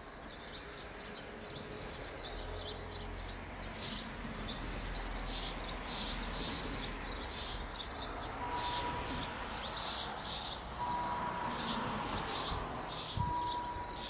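Songbirds chirping over and over, short high calls about one or two a second. A low rumble sits under them for a few seconds in the first half, and a steady tone comes and goes in the second half.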